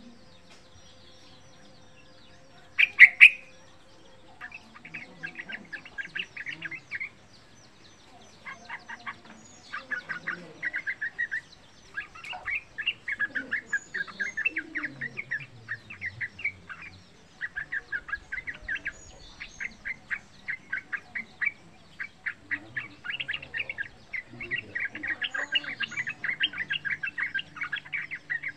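A caged yellow-vented bulbul (trucukan) calling in phrases of rapid, chattering notes, with a loud sharp sound about three seconds in.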